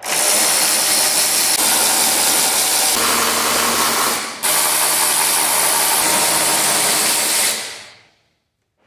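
Cordless electric ratchet with an 11 mm socket spinning off the grille's retaining nuts. It runs in two long, steady stretches, with a brief stop about four seconds in, then winds down near the end.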